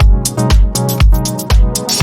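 Electronic dance music with a steady kick drum about twice a second, bright hi-hat ticks and sustained synth chords.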